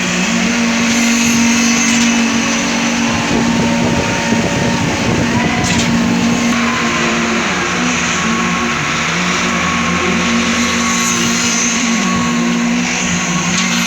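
Concrete-pouring machinery running steadily on a construction site: a continuous engine-like drone with a held hum, its pitch dipping briefly a couple of times.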